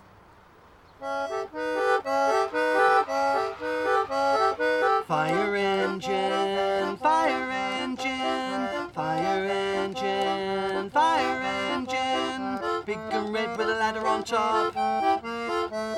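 Concertina playing a tune of repeated short chords, starting about a second in after a brief near silence; a lower line of held notes joins about five seconds in.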